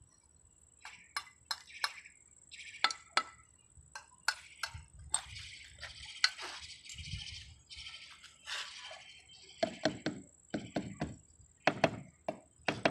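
Terracotta clay roof tiles clinking and knocking as they are laid in mortar, with stretches of scraping in between. A run of heavier knocks comes near the end as the tiles are set in place.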